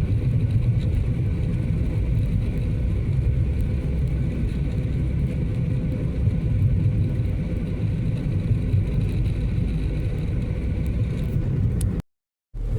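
Steady road and engine noise heard inside a moving car's cabin, a constant low rumble. It cuts out completely for about half a second near the end.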